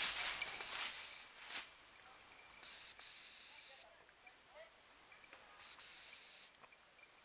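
Gundog whistle blown three times, each a steady high-pitched blast of about a second: the second and third each open with a short pip. These are whistle commands to working English cocker spaniels. Rustling in dry leaves fades out in the first second and a half.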